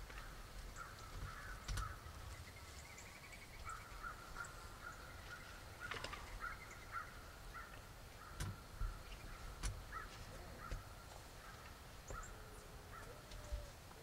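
Faint soft calls of wild turkeys feeding in a field, a scattered run of short notes, with a few sharp clicks in the middle.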